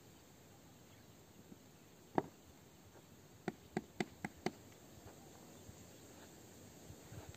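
Sharp clicks over a faint steady outdoor hiss: a single click a little over two seconds in, then a quick run of five clicks, about five a second, a second or so later.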